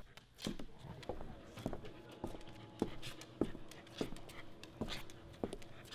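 Footsteps on a hard surface at an even walking pace, about two steps a second.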